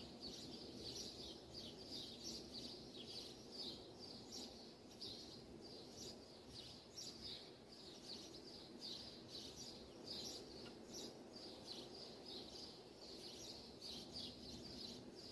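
Faint, repeated scraping of a wooden spatula stirring thick haleem in an aluminium pot, about two to three strokes a second. It is kept up continuously so the rice-and-lentil mix does not stick to the bottom. A low steady hum runs underneath.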